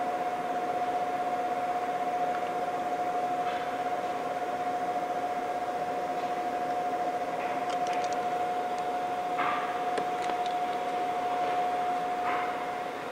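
A steady mechanical hum with one constant tone and a hiss runs throughout. Over it come a few short, faint scratches from a craft blade cutting vinyl wrap, about two-thirds of the way in and again near the end.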